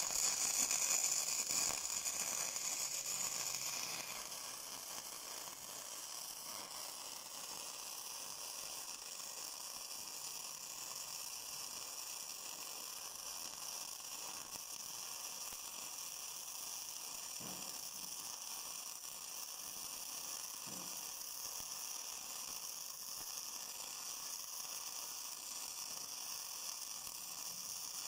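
Self-shielded flux-core arc welding with 1 mm E71T-GS wire on a Gladiator IMET 7160/120 inverter welder: the arc runs steadily with an even hiss while a second pass is laid. It is a little louder for the first few seconds, then steady.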